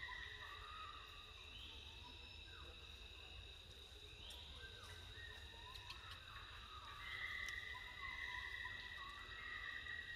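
Faint, steady high-pitched insect drone made of several layered tones, with a new rising swell coming in every few seconds.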